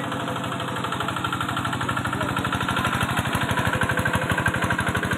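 Engine of a rice-paddy machine running with a rapid, even beat, growing gradually louder.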